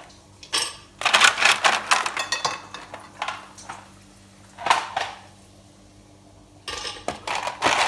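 Kitchen dishes and utensils clattering and knocking in irregular bursts, with a sharp knock about midway.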